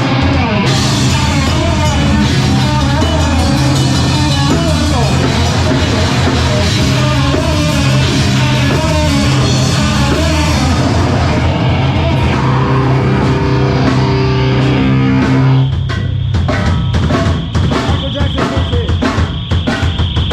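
Live rock band playing loud, distorted heavy music with drums, bass and guitar. About sixteen seconds in the rest of the band cuts out and the drum kit carries on alone with a fast, even beat.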